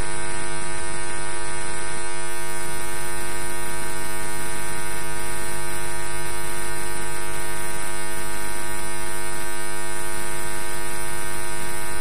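Steady electrical mains hum on the recording: a constant buzz with many evenly spaced overtones and hiss on top, unchanging throughout.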